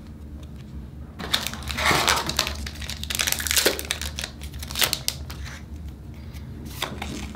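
Trading-card booster pack wrapper crinkling as it is opened by hand, starting about a second in and busiest for about four seconds, with some cards rustling.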